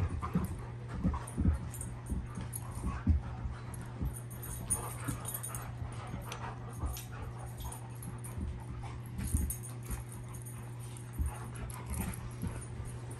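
Several Irish Setters playing rough together: irregular scuffling and thumps of bodies and paws on carpet, with small dog vocal noises mixed in. A steady low hum runs underneath.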